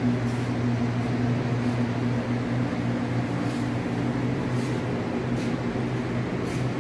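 Steady low hum of restaurant ventilation fans and kitchen equipment running, with a few faint clicks over it.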